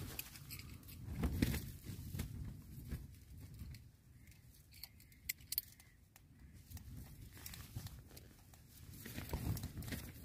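Quiet handling of a small battery air pump and its plastic nozzle attachments: scattered light clicks and rustles, with a near-silent stretch in the middle. The pump's motor is not running.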